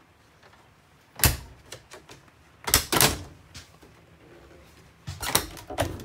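Refrigerator and cupboard doors being opened and shut: a series of sharp clunks and latch clicks, one about a second in, two close together near three seconds, and two more near the end.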